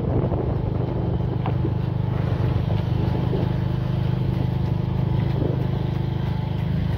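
A motor vehicle engine running steadily at low revs: a low, even hum with a fast pulse that holds unchanged throughout.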